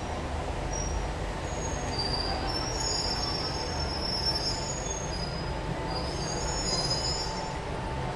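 Metro train's steel wheels squealing on the rails over a steady low rumble, with high-pitched squeals coming and going through the middle, as the train pulls in.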